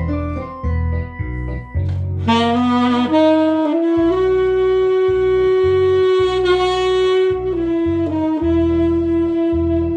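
Tenor saxophone playing a melody over a recorded backing track with a bass line. It moves through several short notes, then holds one long note through the middle before stepping on again.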